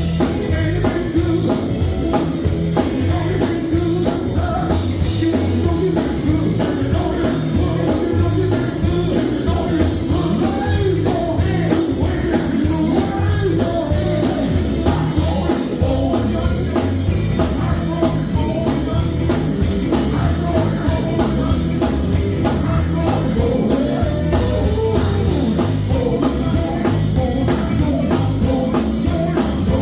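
Live gospel music: a vocal group singing over a band with drum kit, steady and loud.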